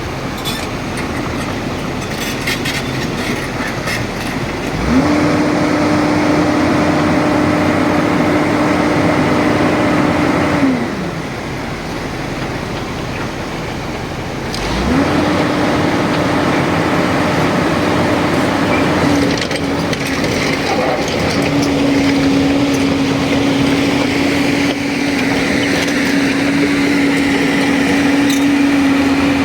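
Hydraulic excavator's diesel engine and hydraulics running under load. The engine revs up to a steady higher pitch about five seconds in and drops back around ten seconds. It revs up again a few seconds later and holds to the end.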